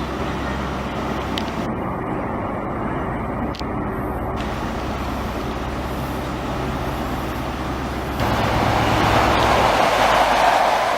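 Train at a station platform: a steady low rumble, then a louder rushing rolling noise from about eight seconds in as a train moves along the platform.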